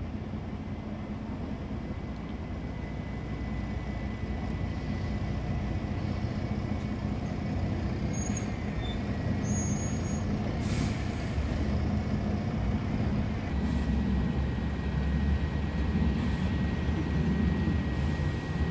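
Double-decker bus running close by, a low engine rumble that grows steadily louder. A short hiss of air brakes comes about eleven seconds in, and a faint steady high whine runs through much of it.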